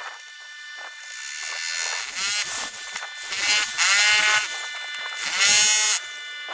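Electric drill with a masonry bit boring into a brick and concrete-block wall: the motor runs with a steady whine, then three loud bursts about a second long whose pitch sags and rises again as the bit loads up and frees.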